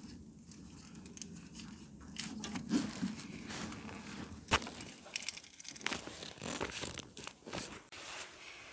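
Refrigerator compressor start relay handled and shaken, its damaged contacts giving irregular rattling, crackling clicks, with one sharp louder click about four and a half seconds in. The crackle is the sign of damaged relay contacts.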